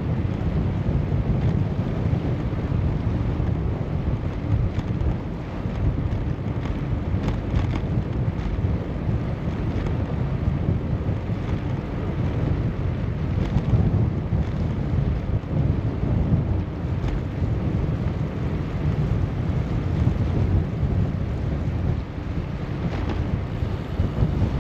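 Wind buffeting the microphone on a moving bicycle: a steady low rumble, with a few faint clicks scattered through it.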